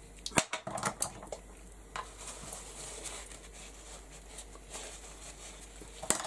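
Small handling sounds of craft supplies: a few sharp clicks and knocks in the first two seconds as a small jar is closed and set down, then faint light handling with a small knock near the end.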